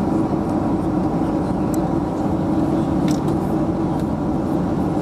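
Steady cabin noise of a Boeing airliner in cruise flight: engine and airflow noise heard by the window over the wing, an even drone with a strong low hum. A couple of faint clicks sit on top.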